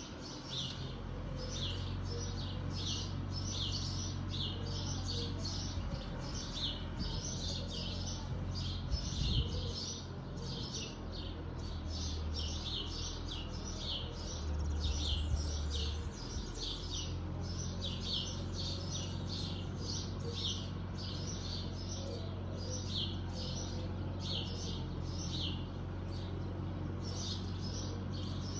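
Fiat 766 DT tractor with a bank-mowing arm running steadily in the distance as a low drone that swells for a few seconds midway, under a bird chirping over and over, about three chirps a second.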